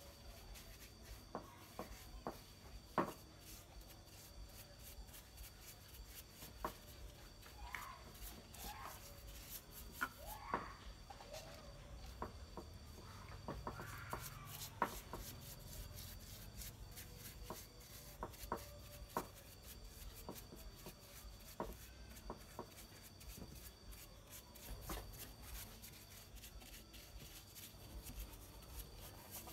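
Faint scattered clicks and light taps of a small brush working polish into a carved wooden statue, with soft rubbing between them.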